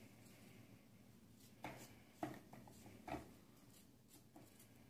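Near silence with a few faint, short clicks from courgette being cut into small pieces that drop into the plastic bowl of a baby-food steamer-blender.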